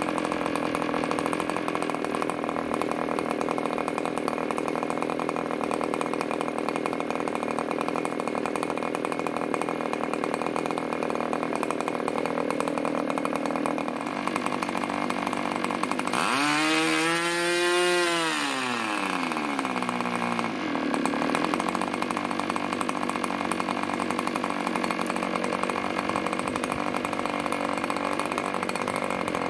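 OS Max FP40 single-cylinder two-stroke glow model engine running at high revs on a test stand, turning an 11x5 propeller, with a steady high-pitched buzz. About sixteen seconds in, the revs rise and then fall back over a few seconds before settling to the same steady pitch.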